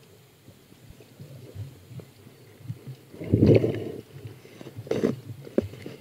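Muffled underwater rumbling picked up by a camera in its waterproof housing, with scattered knocks, a louder burst lasting under a second about three seconds in, and a shorter one about five seconds in.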